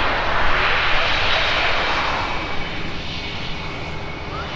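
Airbus A319's twin turbofan jet engines during the landing roll on the runway: a loud rushing jet noise that swells about a second in, then fades from about two seconds in.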